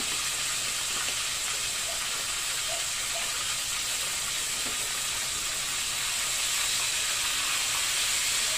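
Pork spare ribs sizzling in their sauce in a wok on a gas stove: a steady hiss.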